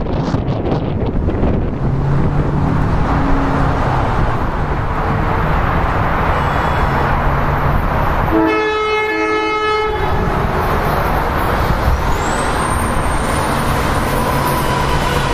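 Train horn sounding one blast about a second and a half long, midway, over a steady rumble of wind and rail noise. Near the end, a high whine rises and holds as an NJ Transit Arrow III electric multiple-unit train approaches.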